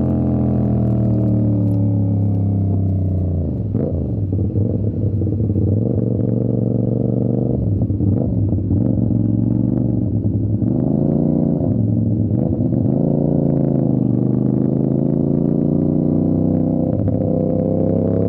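CFMOTO 450 SR's 270-degree parallel-twin engine through an aftermarket Avionic exhaust, heard from the rider's seat: a steady drone while cruising, the revs falling about three and a half seconds in, rising and falling unevenly for several seconds, then building steadily again over the last few seconds.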